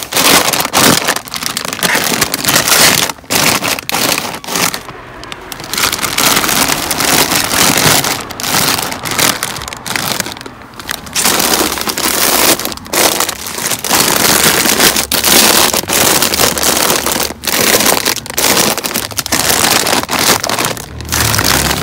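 Plastic chip and snack bags crinkling as they are handled and pushed onto pantry shelves, loud and close, with many short breaks.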